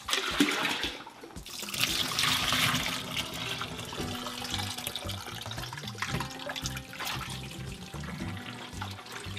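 Whey pouring and splashing out of a stainless steel pot through a metal colander into a plastic bowl in a sink. It is loudest in the first few seconds, then goes on as a quieter trickle as the last of the whey drains off the curd.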